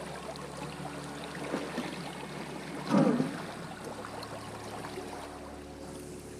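Shallow river riffle running steadily past a drifting inflatable boat. About three seconds in comes a single loud, brief thump.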